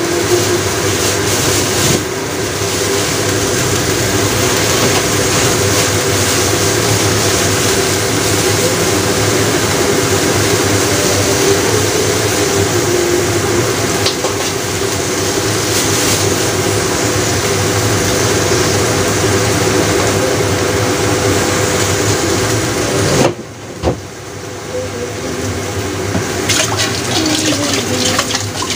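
Beef and shiitake mushrooms simmering in a covered pan on a gas stove, a loud steady simmering noise under the glass lid. About three-quarters of the way through it drops off sharply for a moment, then builds back up.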